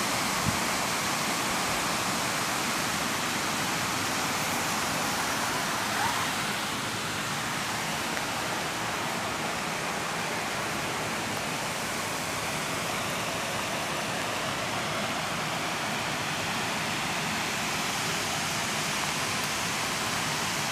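Steady, even rush of running water, unchanging throughout.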